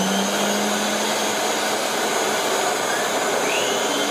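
Vacuum cleaner running steadily as it is pushed over a rug, with a brief rising whine about three and a half seconds in.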